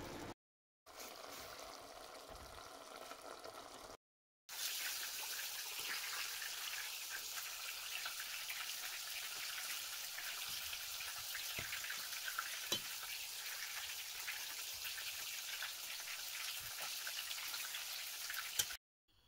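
Chicken and onion yassa sauce sizzling in a pot over medium heat: a steady, fine crackling hiss. After two short breaks of silence near the start, it grows louder and runs on evenly.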